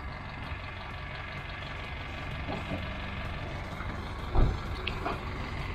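A tow vehicle's engine running low and steady while it backs the boat trailer down the ramp, with a single thump about four and a half seconds in.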